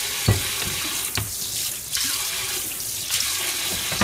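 Kitchen tap running steadily into a stainless steel sink full of dishes, with a sharp knock of dishes being handled about a third of a second in and a couple of lighter knocks later.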